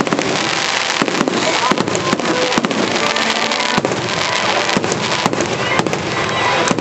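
Aerial fireworks display going off: a dense, continuous din of bangs and crackling, with sharp reports following one another many times a second.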